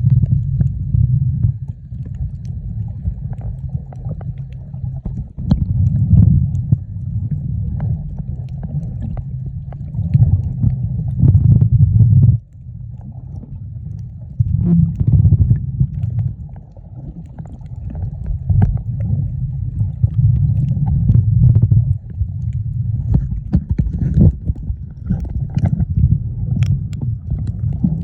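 Muffled underwater rumbling and sloshing of water picked up by a submerged camera, swelling and fading every few seconds, with a sudden drop about twelve seconds in.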